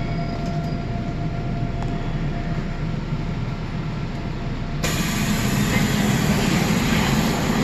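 Seoul Metro Line 9 Class 9000 electric multiple unit, heard from inside the car as it slows to a stop at a station: steady running noise, with a faint electric whine that fades away over the first few seconds. About five seconds in, a louder hiss suddenly sets in.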